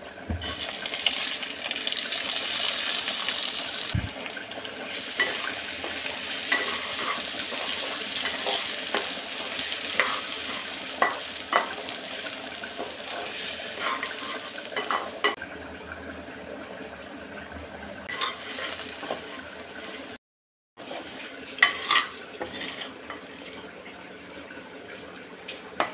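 Rice grains sizzling in hot oil in a pressure cooker as they are poured in and stirred with a wooden spatula, which scrapes and clicks against the pan. The sizzle is loudest in the first half and fades after that, with a brief gap of about half a second about three quarters through.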